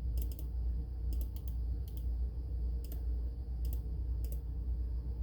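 Computer mouse buttons clicking, about a dozen sharp clicks at uneven intervals, several in quick pairs, over a steady low hum.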